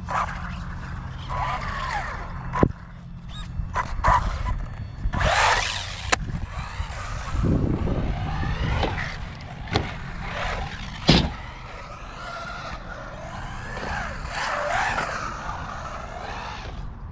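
Small electric motor of a 1/18-scale RC buggy whining as it revs up and down while being driven hard on concrete, with several sharp knocks from hard landings or crashes, the loudest about eleven seconds in.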